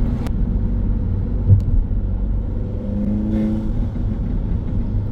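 Audi A3's 1.8 TFSI turbocharged four-cylinder running under way, heard from inside the cabin, with a steady low rumble. There is a short thump about a second and a half in, and the engine note rises briefly about three seconds in.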